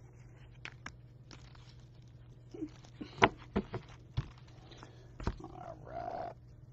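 Rigid plastic trading-card holders (top loaders) clacking against each other as a stack of cards is gathered and set down. There is a handful of sharp clicks, the loudest about three seconds in, a short rubbing sound near the end and a low steady hum underneath.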